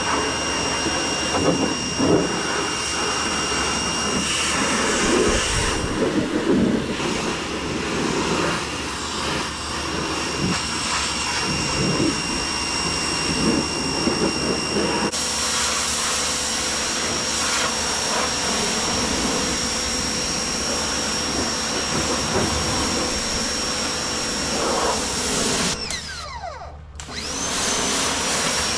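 Electric pressure washer running, with a steady high motor whine over the hiss of the water jet. About 26 seconds in the motor winds down and briefly stops, then starts up again.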